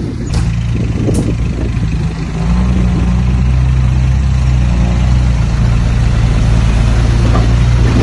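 Dump truck's diesel engine running, revving up about two and a half seconds in and holding there while the tipped bed empties its load of soil and rock. A couple of light knocks sound in the first second.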